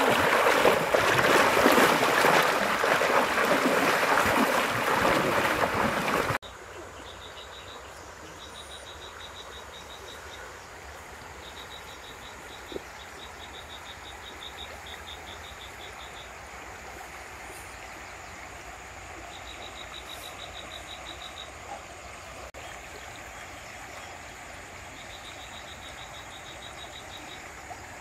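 River water splashing and rushing as two children wade through it. About six seconds in it cuts suddenly to a much quieter steady hiss, with several short bursts of a rapid, evenly pulsed high trill, an animal calling.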